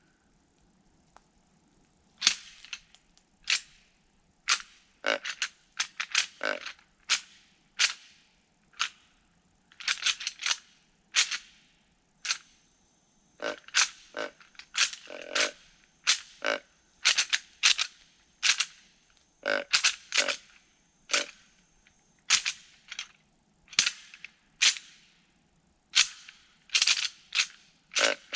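A deer rattling bag shaken and ground together in short, sharp clacking bursts at irregular intervals, often in quick pairs or triples. It imitates bucks sparring with their antlers to draw whitetails in.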